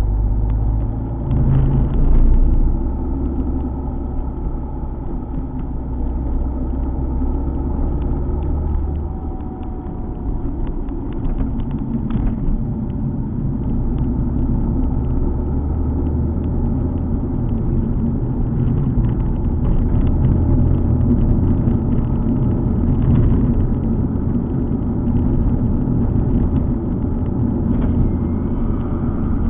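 Alfa Romeo 147 GTA's 3.2-litre V6 running as the car drives along, with a steady low rumble of engine and road noise that swells and eases slightly.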